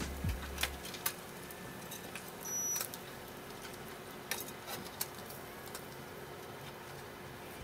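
Oil crackling and popping irregularly as small whole fish deep-fry in a pot, over a faint steady hum.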